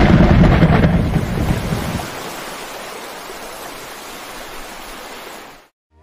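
Thunderclap sound effect: a loud rumble that dies away after about two seconds into a steady hiss of rain, which fades out near the end.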